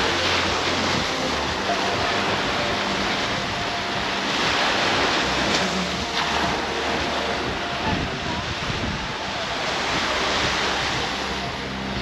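Small waves breaking and washing up on a sandy shore, the surf swelling and easing every few seconds, with some wind on the microphone.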